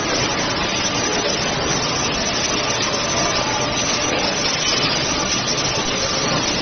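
Rotary premade-pouch packing machine running: a steady mechanical din with a faint constant hum under it.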